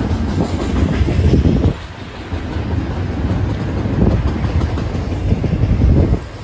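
Double-stack intermodal freight train's well cars rolling past close by, a heavy rumble of wheels on rail that swells and dips as the cars go by.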